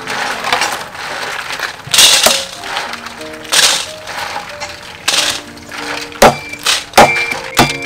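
Background music with held notes over snail shells rattling and scraping against a steel bowl as they are washed by hand. Three sharp knocks come in the last two seconds.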